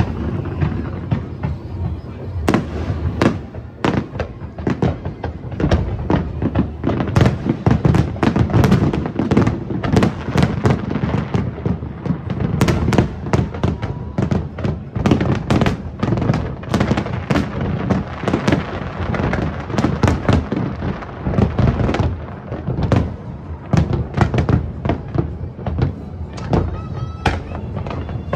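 A large fireworks display firing without a break, a dense volley of shell bursts, bangs and crackles overlapping with one another.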